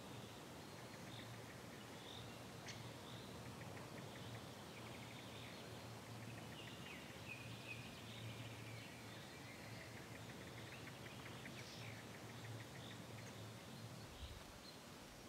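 Faint outdoor ambience: small birds chirping and trilling in short, scattered calls over a low, steady background rumble.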